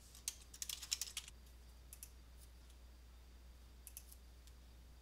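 Computer keyboard typing: a quick run of keystrokes for about a second, then a few separate clicks about two and four seconds in. A faint steady low hum sits underneath.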